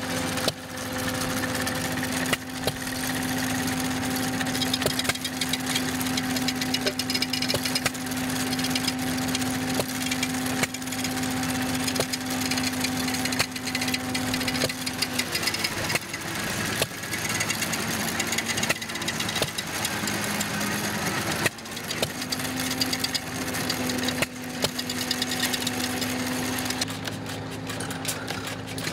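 Small antique gas engine running with uneven knocks, under a steady hum that cuts out about halfway and comes back later.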